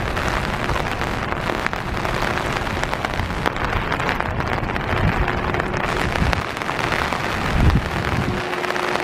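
Steady rushing of floodwater pouring through the Mactaquac Dam's open spillway gates into the churning river below, with a few low gusts of wind on the microphone in the second half.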